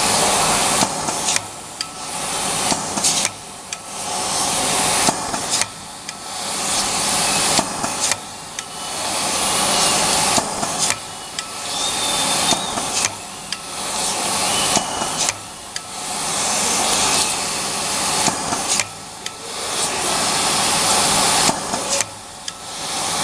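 Semi-automatic flat-surface labeling machine running through repeated labeling cycles on plastic bags: a noisy hiss that builds up and then cuts off about every two and a half seconds, with clicks at the breaks.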